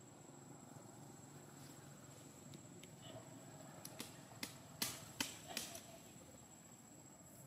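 A quick run of about six sharp clicks or light knocks over a couple of seconds, heard over a faint steady background.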